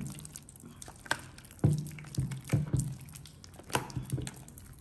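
Hands kneading and squeezing a large batch of clear slime mixed with liquid soap: irregular wet squelches and small pops, one every half second to a second.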